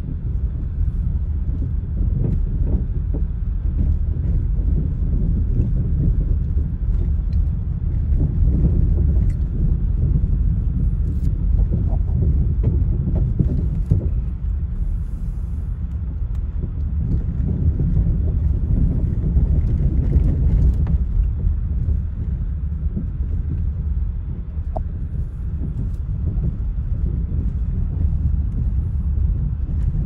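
Steady low rumble inside a car's cabin as it drives slowly over a wooden plank pier deck: tyres rolling on the boards together with the engine.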